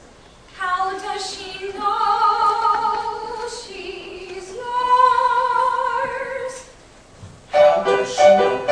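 A solo singing voice holding long notes with vibrato, a drawn-out phrase followed by a higher held note about halfway through. Near the end, louder and choppier music starts.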